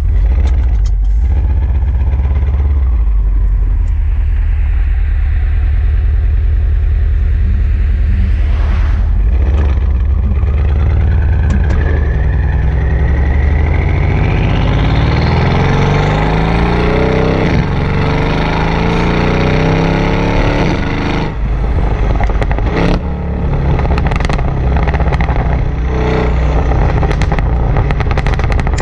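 Tuned Mercedes-Benz E63 AMG twin-turbo V8 exhaust heard at the tailpipes. A deep rumble at low speed gives way, from about halfway, to hard acceleration with the revs climbing. When the throttle closes, the engine lets out a string of sharp overrun pops and crackles.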